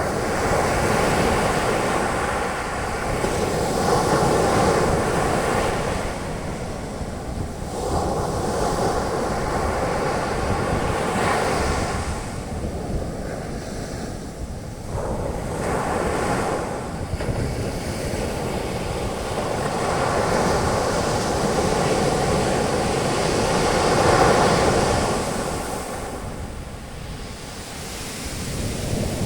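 Sea waves breaking and washing up a beach, the foam hissing as it spreads, in swells every few seconds, over a steady low rumble of surf and wind on the microphone.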